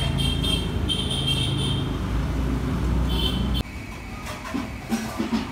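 Low, steady engine-like rumble, like a motor vehicle running, with a few short high tones over it; it cuts off suddenly about three and a half seconds in.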